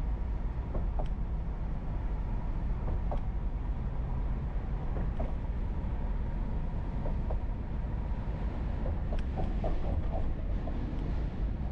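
Steady low road and tyre rumble of a car driving across a bridge, heard from inside the car, with a few faint clicks and ticks scattered through it, more of them about nine seconds in.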